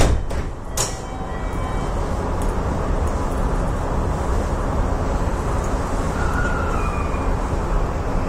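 Tokyu 3020 series train's cab with a steady low rumble and hum. There are two sharp knocks, one at the start and one just under a second later. About six seconds in comes a short rising whine as the train's traction motors start it moving.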